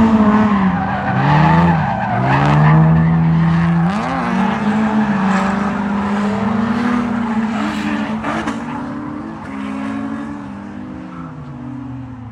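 Drift car engine revving up and down, its pitch dropping and climbing again several times, with tyres squealing as the car slides. The sound eases off towards the end.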